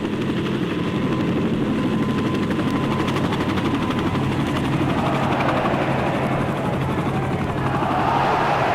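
Helicopter hovering, its rotor beating steadily over a constant engine hum. From about five seconds in, the noise of a crowd swells up beneath it.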